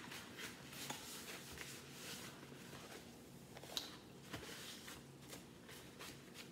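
White paper bag crinkling and rustling as it is handled and opened, in a string of short crackles with a sharper one a little under four seconds in.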